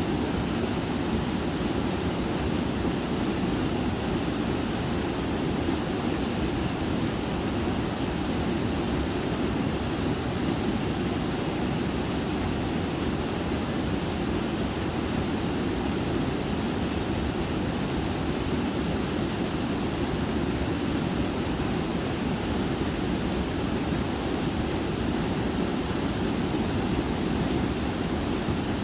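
Mountain stream flowing steadily over rocks, a constant rush of water with no breaks or separate splashes.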